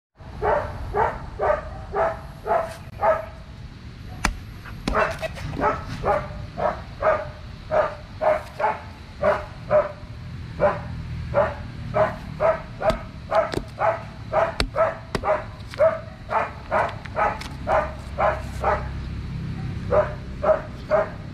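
A dog barking over and over, about two barks a second, pausing briefly about four seconds in and again near the end. A couple of sharp clicks stand out between the barks.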